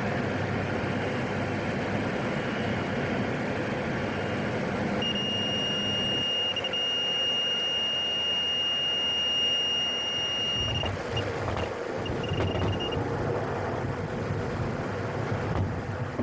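Cockpit of a PAC 750XL turboprop on its landing: engine and cabin noise, with a steady high warning beep starting about five seconds in that holds for several seconds, then stutters into short beeps and stops. About eleven seconds in an uneven low rumble begins, consistent with the wheels touching down and rolling on the strip.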